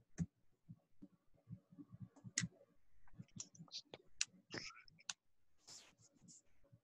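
Faint, irregular small clicks and light handling noises, with a brief rustle about six seconds in.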